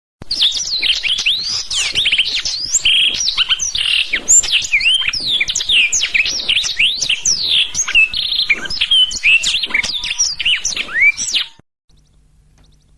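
Blackthroat (black-throated canary) singing a fast, continuous warbling song of quickly rising and falling whistled notes, which cuts off abruptly about a second before the end.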